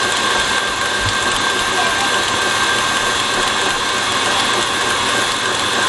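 KitchenAid stand mixer running steadily, its motor and gears whirring as the wire whisk whips thickening marshmallow mixture in the stainless steel bowl.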